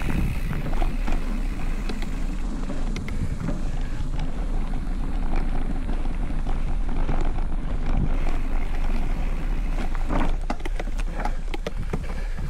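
Specialized Stumpjumper Evo mountain bike ridden on a dirt trail, heard from a handlebar-mounted camera: steady tyre and wind rumble with scattered rattles and clicks from the bike, and a cluster of sharp knocks about ten seconds in.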